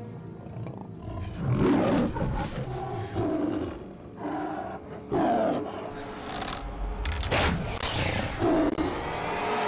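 Tiger roaring and growling repeatedly, in loud, rough bursts about half a second to a second long.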